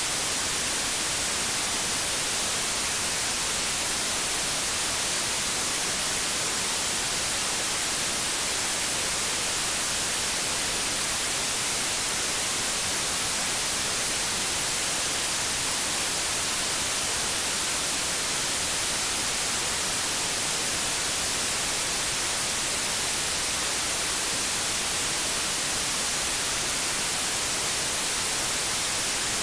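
Steady white noise: an even, unbroken hiss, brightest in the treble, with no change in level.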